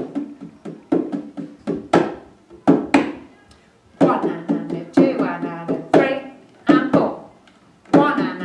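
Djembe-style hand drum struck by hand in a rhythm over a steady backing beat of about one stroke a second.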